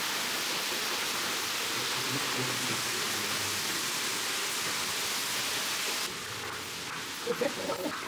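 A steady, even hiss that drops abruptly to a lower level about six seconds in, with a faint brief voice near the end.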